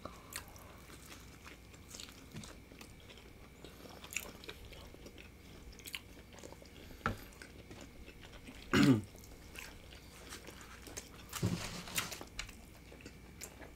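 Close-miked biting and chewing of a carne asada quesadilla in a flour tortilla, with soft wet mouth clicks and small crunches. About nine seconds in, a short voiced sound falling in pitch, with a fainter one a few seconds later.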